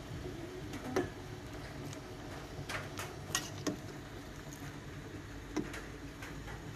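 A metal ladle clinking against a large steel cooking pot of boiling chè, five or six sharp, irregularly spaced clicks over a steady low hum.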